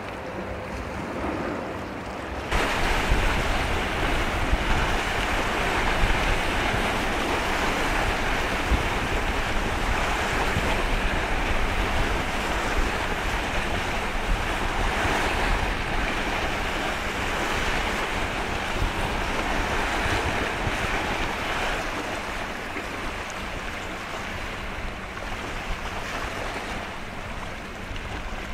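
Wind buffeting the microphone with a deep rumble over a steady rush of sea water. The wind and rush rise suddenly about two and a half seconds in and ease off somewhat near the end.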